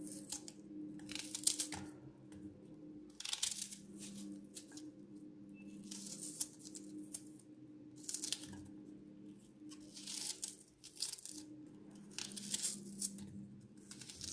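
A knife slicing through a raw onion held in the hand, one crisp cut about every second. A faint steady hum runs underneath.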